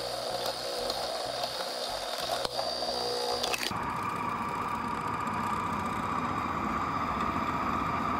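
Moulinex Companion food processor running at speed 10 with its vegetable-cutter attachment and slicing disc, cutting potatoes into thin slices: a steady motor whine. About three and a half seconds in the sound turns cleaner and steadier.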